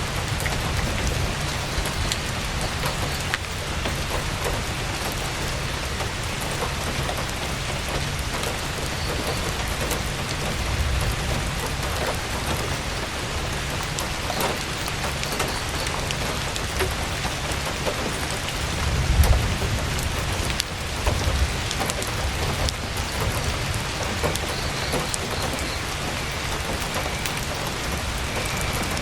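Heavy rain drumming steadily on a tent, with scattered sharp crackles from a campfire. A low rumble swells briefly about two-thirds of the way in.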